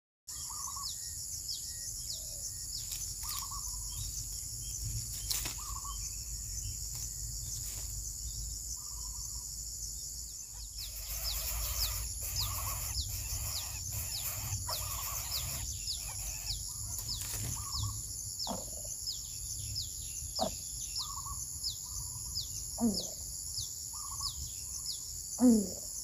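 Outdoor ambience of a steady high insect drone with birds chirping rapidly and repeatedly. In the last third come a few short, low sweeping calls, the loudest just before the end.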